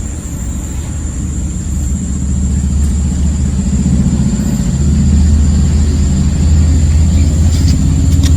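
A motor vehicle's engine rumbling low and steady, growing louder over the first few seconds and then holding. A thin, steady high-pitched whine runs above it.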